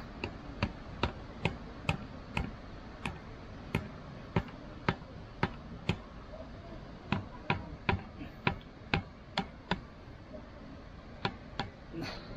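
A series of sharp clicks or knocks, about two a second, stopping twice for a second or so before starting again.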